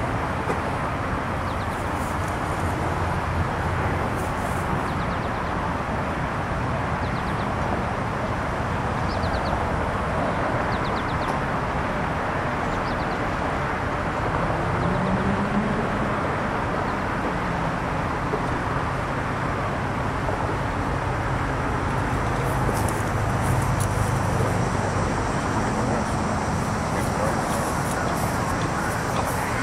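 Steady outdoor traffic and engine noise, with a lower engine tone that swells around the middle and again later on.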